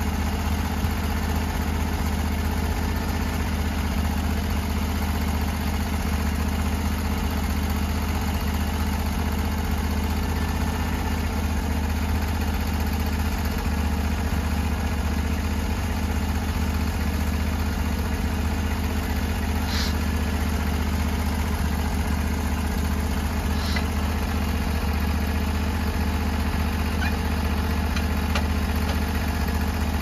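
Engine on the cutting head of a Norwood HD38 portable bandsaw mill running at a steady idle.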